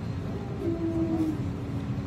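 Steady low rumble of a passenger train running, heard from inside the carriage, with a brief held tone around the middle.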